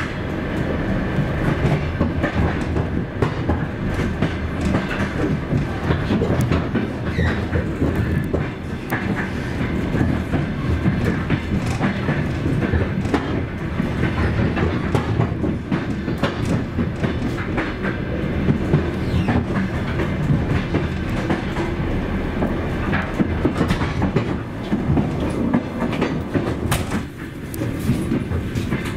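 Passenger train coach's wheels running over the rails: a continuous rumble with a rapid, irregular clickety-clack of wheels over rail joints.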